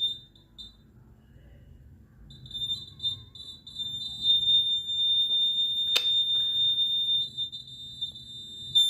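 Electronic buzzer of a homemade security alarm sounding a high tone, first as a few short beeps and then rapid pulsing that settles into a steady tone, with a sharp click about six seconds in.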